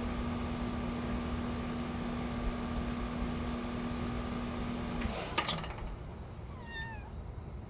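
Young cat meowing once near the end, a short call falling in pitch. Before it a steady hum runs and cuts off about five seconds in, with a few sharp clicks.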